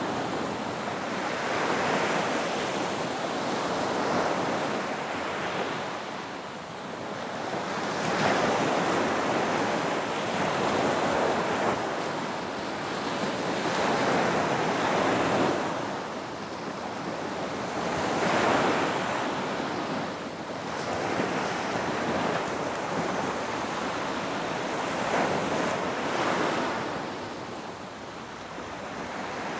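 Ocean waves breaking and washing on a beach: a continuous rushing of surf that swells and fades every few seconds as each wave comes in and recedes.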